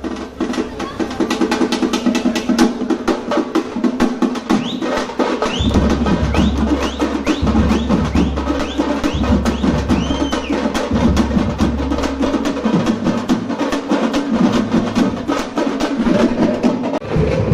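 Tamate frame drums beaten rapidly with sticks in a dense, driving rhythm, with a few short rising whistles around the middle.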